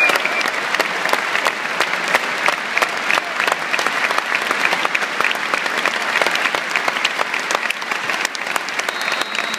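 Stadium crowd applauding: thousands of people clapping steadily as a tribute.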